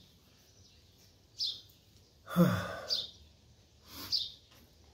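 A small bird gives about four short, high chirps, spread across the few seconds. About halfway, one short vocal sound falling in pitch, louder than the chirps, stands out.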